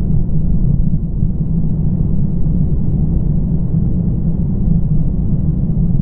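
Sgwd yr Eira waterfall's curtain of water pounding onto the rocks just beyond the ledge: a loud, steady, deep rumble with little hiss.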